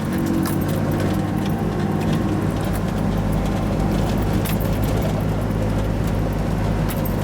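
1988 Toyota 4x4's engine running steadily as it climbs in four-wheel-drive low, with scattered light clicks and rattles.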